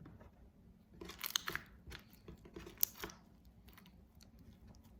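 Borax-activated white-glue slime being stretched and squished by hand, giving small crackles and pops in two bursts, about a second in and again near three seconds.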